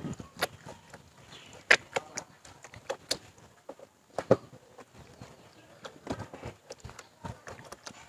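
Batik cloth being worked by hand in a tub of dye bath: irregular wet splashes, slaps and squelches of fabric and hand in the liquid, loudest about two and four seconds in.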